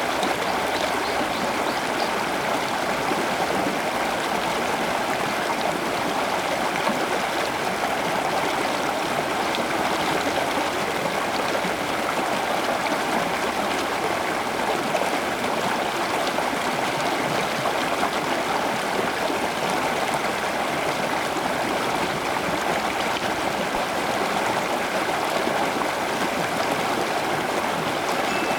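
Steady rush of flowing water, like a small stream or water feature, unchanging throughout.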